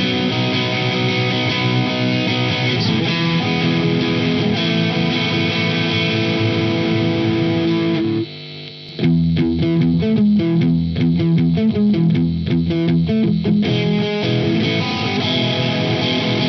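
Bacchus Universe Series electric guitar played through a crunch (light overdrive) tone on its middle pickup, switched to middle-plus-bridge right at the end. Ringing chords give way to a short gap about eight seconds in, then a fast run of picked single notes, then ringing chords again.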